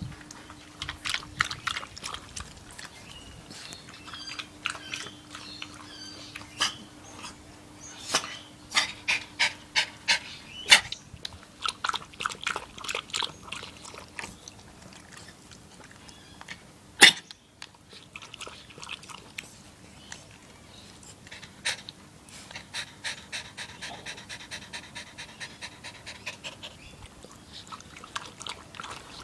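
A small dog panting hard with its tongue out, cooling off in a tub of water after playing ball. A single sharp knock partway through.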